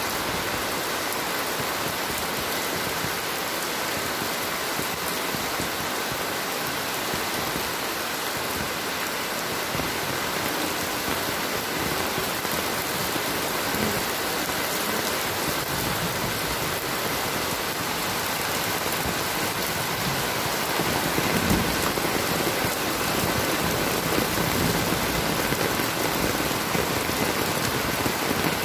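Heavy rain pouring steadily onto paving and puddles, a dense even hiss that grows a little louder about twenty seconds in.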